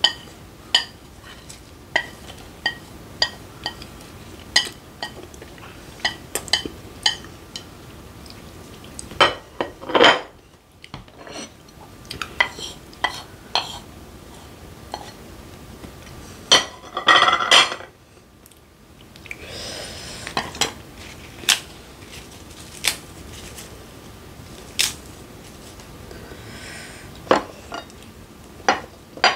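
Wooden chopsticks clicking and scraping against a ceramic plate while food is scraped off the tilted plate. The clicks are sharp and come at irregular intervals, with two longer scraping runs, about ten and seventeen seconds in.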